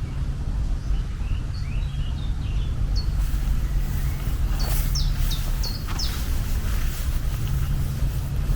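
Birds chirping in a nature soundscape: short, quick, high chirps that drop in pitch, clustered between about three and six seconds in, over a steady low rumble.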